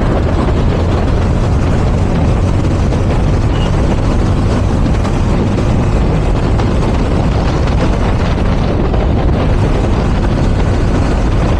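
Yamaha R15M motorcycle ridden at road speed: a steady, loud rush of wind over the microphone mixed with engine and road noise.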